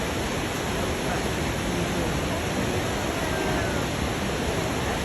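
A large waterfall's steady, even rush of falling water, with faint voices of people around it.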